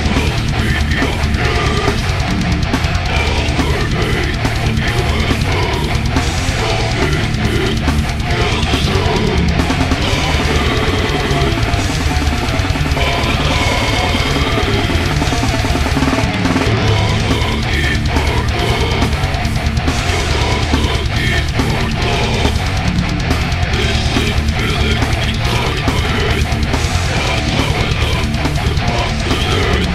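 Brutal death metal recording: heavily distorted guitars and bass over dense, fast drumming, playing without a break.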